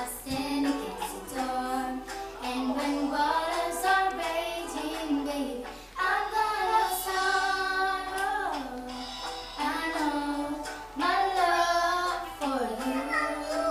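Two young girls singing together, with long held notes that slide up and down between pitches.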